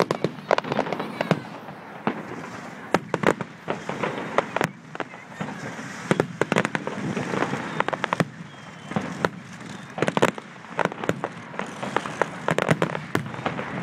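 Fireworks display: a rapid, irregular string of sharp bangs and crackling, with dense clusters of reports every few seconds.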